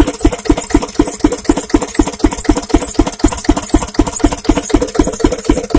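Field Marshal 8 HP single-cylinder diesel stationary engine running steadily under load, driving a water pump by flat belt. It beats evenly at about five to six firing knocks a second.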